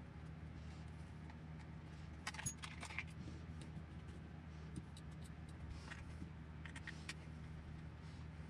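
Faint metallic clinks and light clatter of hand tools and small metal parts being handled during disassembly of an RC truck's front end: a cluster about two seconds in, a single click near five seconds and a few more around seven seconds. A steady low hum runs underneath.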